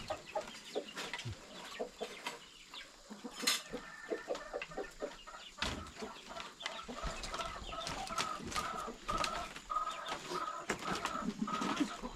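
Chickens clucking, with a quick run of repeated clucks through the second half, and a few light knocks scattered throughout.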